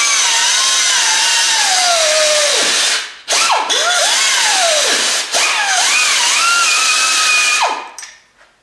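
Air-powered cut-off wheel grinding through steel mounting studs, its high whine sagging in pitch as the wheel bites and climbing back as it eases off. It breaks off briefly about three seconds in and again near five seconds, and stops shortly before the end.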